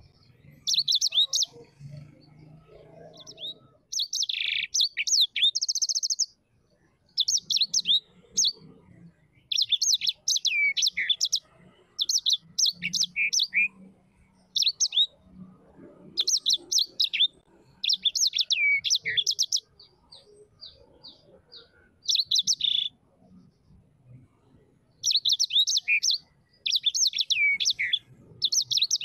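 A small bird singing: repeated bouts of rapid, high chirps and trills, each a second or two long, with short pauses between.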